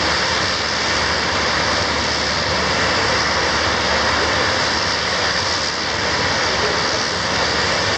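Aircraft engines running steadily: an even, loud rush with a thin, steady high whine.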